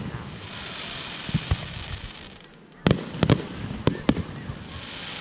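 Aerial firework shells bursting. A cluster of sharp bangs comes about three seconds in and two more follow a second later, with a hissing crackle of the burning stars between them.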